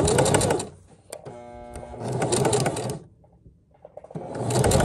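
Sewing machine stitching in three short runs, stopping and starting again, with a brief steady hum between the first two runs and a near-silent pause about three seconds in.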